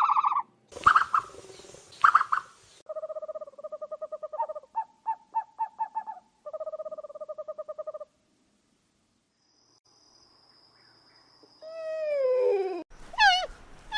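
A series of different animal calls one after another: a breathy noisy call, then steady pitched calls alternating between two notes, a few seconds of near silence, then a falling call and quick repeated chirp-like calls near the end.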